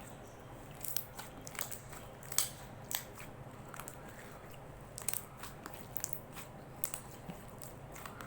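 Slime being squished and pressed by hand, giving irregular crackling clicks and pops, the loudest about two and a half seconds in.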